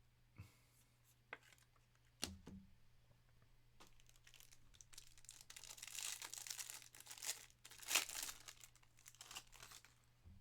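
A trading-card pack wrapper being torn open and crinkled, after a few light clicks of handling. The crinkling is loudest around two-thirds of the way through.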